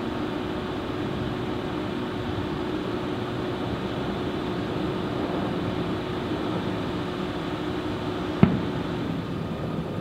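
Steady outdoor background hum with a low steady tone that fades out about nine seconds in. A single sharp bang about eight seconds in.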